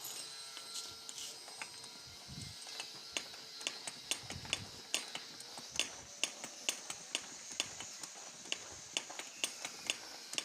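Sharp metallic clicks from work on a tube-well hand pump, coming about three a second from about three seconds in, with a couple of dull knocks among them.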